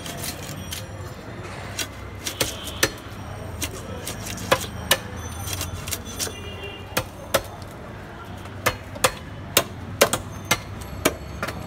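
Sharp chopping knocks of a big catla fish being cut into pieces at a fish-cutting station, some with a brief metallic ring, coming in a quick run of about two or three a second near the end, over a steady market background.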